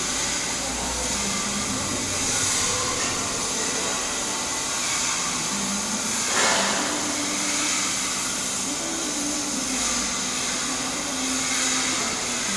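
Stick (SMAW) welding arc burning an E7018 low-hydrogen electrode on a capping pass: a steady hiss with a brief louder swell about six seconds in.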